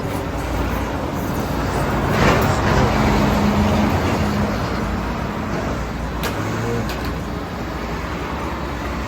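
A motor vehicle running with road noise: a steady low rumble that swells louder, with a steady hum, about two seconds in, then eases off.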